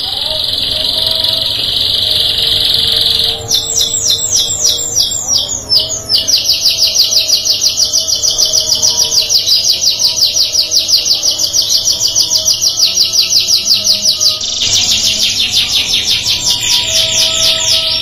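Domestic canary singing: a steady, high buzzing trill, then a long, rapid rolling trill of repeated falling whistled notes, changing to new phrases of falling notes near the end.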